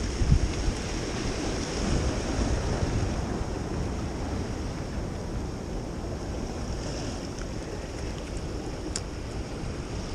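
Sea surf washing over shoreline rocks, a steady rushing noise, with wind buffeting the microphone as a low rumble.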